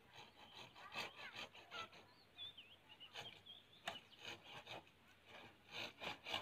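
Irregular scraping and rubbing strokes of hand work against a concrete-block wall.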